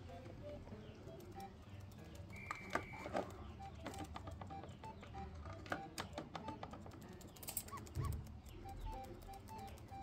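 Light background music with a plinking tune of short repeating notes, over many scattered sharp clicks and taps. A short held high whistle sounds about two and a half seconds in.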